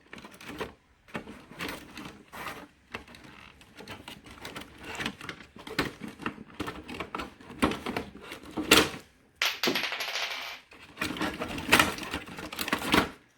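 Loose metal case parts and hardware of a CB radio being handled: scattered clicks and clinks, with a rasping stretch of about a second around two-thirds through and the loudest knocks near the end.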